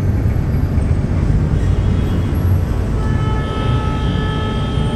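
Steady low rumble of city traffic. About three seconds in, a vehicle horn starts a long, held honk.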